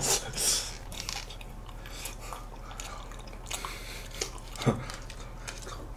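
Soft eating sounds: ice cream spooned from small cups with plastic spoons and eaten, with a few faint scattered clicks and mouth smacks.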